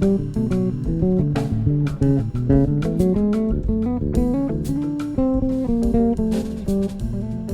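Instrumental jazz-style band playing: a guitar picking a quick run of notes over an electric bass line.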